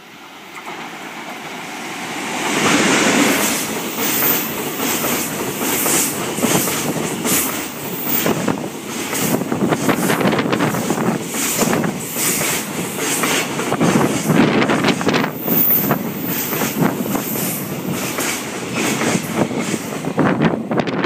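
Container freight train hauled by an EF81 electric locomotive passing close by. The sound builds quickly about two seconds in as the locomotive goes past, then the container wagons' wheels clatter steadily over the rail joints in a long run of rapid clicks.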